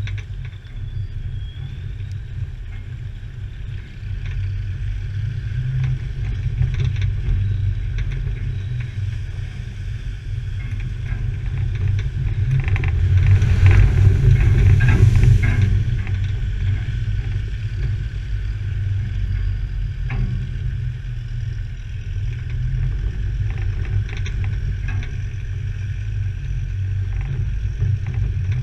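Off-road 4x4 driving slowly down a rough track, heard from the bonnet: a steady low engine rumble with the tyres clattering and crunching over stones and ruts. About halfway through, a louder rushing noise swells for a few seconds, then falls back.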